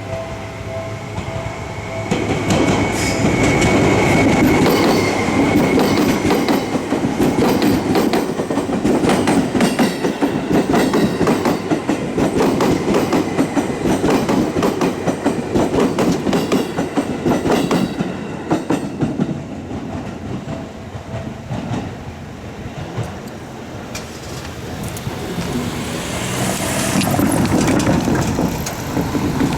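Electric commuter train passing over a level crossing, its wheels clattering over the rail joints in rapid knocks from about two seconds in. The noise eases after about twenty seconds and swells again near the end.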